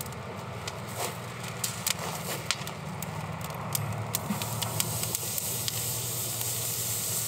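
Charcoal fire crackling with scattered sharp pops in an open ceramic kamado grill. About four seconds in, a thick bone-in rib steak is laid on the hot grate and a sizzling hiss builds.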